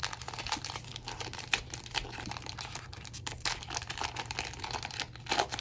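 Wrapper of a 2025 Donruss football trading card pack crinkling and tearing as it is ripped open by hand, in many irregular crackles.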